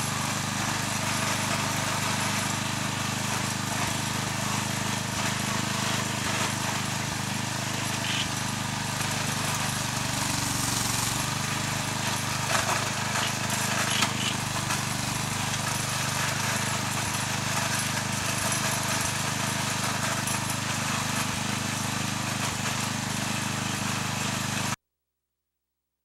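The small engine of a homemade CAD Digger backhoe runs steadily, driving its hydraulics as the boom and bucket dig a trench, with a few brief knocks from the bucket working in the soil. It cuts off abruptly near the end.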